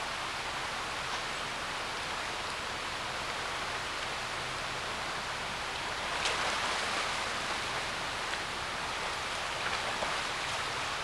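Shallow mountain river running over rocks, a steady rushing hiss, with a brief louder splash about six seconds in as a swimmer kicks against the current.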